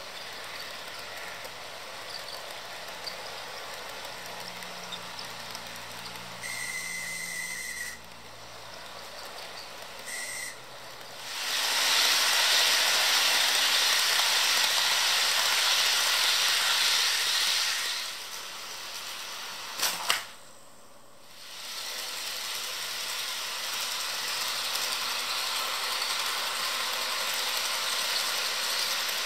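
HO scale model passenger train rolling along the track: a steady whirring hiss of wheels and motor, much louder for about six seconds a little over a third of the way in as the cars pass close, with a sharp click about two-thirds through.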